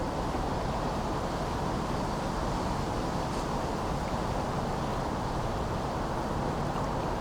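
Steady autumn wind mixed with the low, even rumble of distant bridge traffic, with no single event standing out.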